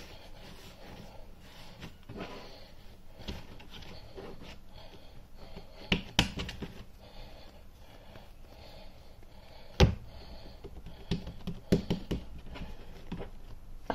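Hands working and shaping a ball of bread dough on a floured worktop: soft rubbing and patting, with a few short thumps against the counter, the loudest about ten seconds in.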